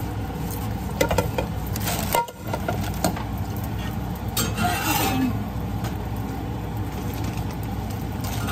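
Stovetop cooking noise while chapatis fry in pans: a steady low hum, with a few light clicks and clinks of a metal spatula and pans about a second in.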